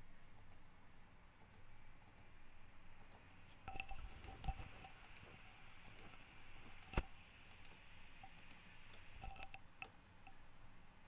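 Computer mouse clicking over faint room noise: a few clicks about four seconds in, one sharper, louder click about seven seconds in, and a small cluster of clicks near the end.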